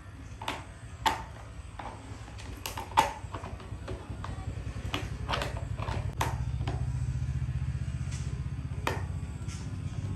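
A string of sharp clicks and knocks, like hard objects being handled, over a low steady hum that grows louder about halfway through.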